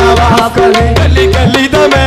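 A qawwali ensemble playing an instrumental passage: harmonium holding and repeating short melodic notes over tabla in a steady rhythm, with deep bass drum strokes that bend upward in pitch.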